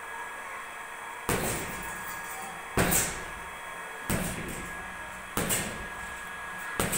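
Boxing-gloved punches landing on a hanging Jonex punching bag: five thuds, about one every second and a half.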